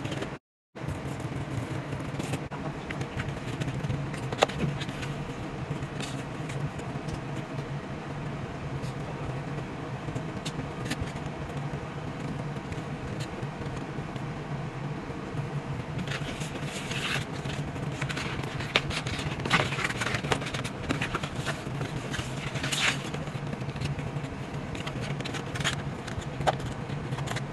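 Paper pages, photocards and glossy holographic sleeves of a photobook set rustling, scraping and clicking as they are handled, over a steady low hum. The handling sounds are scattered at first and come thick and louder in the second half.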